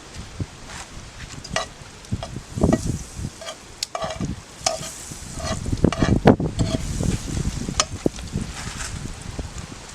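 Butter sizzling in a hot pan while a metal spoon stirs it, with irregular clinks and scrapes against the pan.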